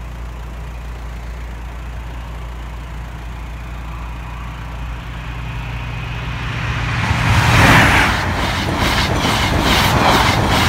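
A High Speed Train with Class 43 diesel power cars passes at speed. A steady low hum swells from about five seconds in to a loud rush near eight seconds as the leading power car goes by. The coaches follow with a rapid, regular clatter of wheels over the rail joints.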